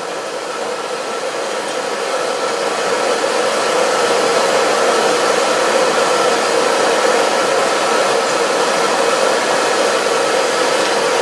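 Steady whirring blower noise with a constant hum, growing a little louder over the first few seconds and then holding even.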